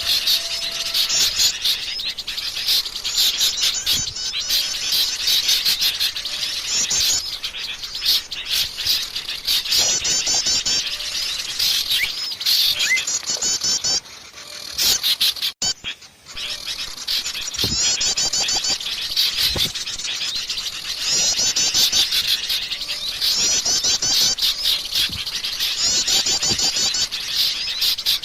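Wild forest birds calling and singing, with rapid high trills repeated phrase after phrase, and a short lull about halfway through.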